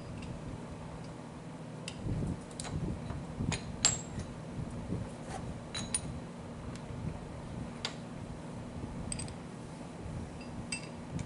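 Scattered sharp metallic clinks and taps as steel vise jaws are fitted to the mounting blocks of a Winn Speed Lock 6-inch milling vise and their screws turned to lock them, over a steady low hum.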